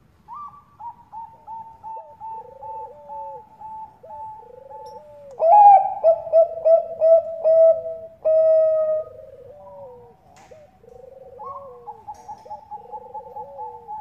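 Zebra doves (Bangkok-bred perkutut) cooing: runs of quick staccato coo notes at two pitches overlapping, more than one bird calling at once. The calling is loudest in the middle stretch.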